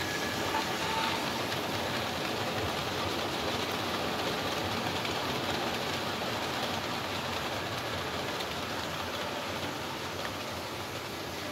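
Model railway freight wagons rolling past close by, their small metal wheels clattering over the track joints in a steady, dense rattle. The rattle eases slightly near the end as the train moves away.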